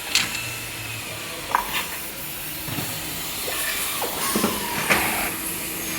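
Steady hiss of compressed air at a door-closer air leak test rig, with scattered light clicks; the door-closer body under test is leaking.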